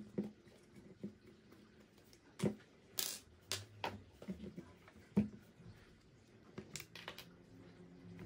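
Hands working on a plastic RC car chassis with small metal tools and parts on a wooden table: scattered clicks and knocks, with a short scrape about three seconds in.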